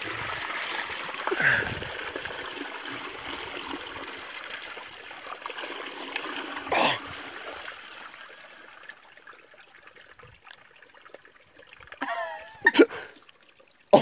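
Creek water trickling and splashing over rocks, fading out after about nine seconds. Near the end there is a short burst of voice and a couple of sharp knocks.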